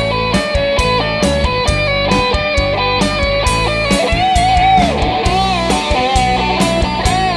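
A live rock band playing: a Les Paul-style electric guitar plays a lead over a steady drum beat and bass. About four seconds in, a held guitar note is bent and wavers with vibrato.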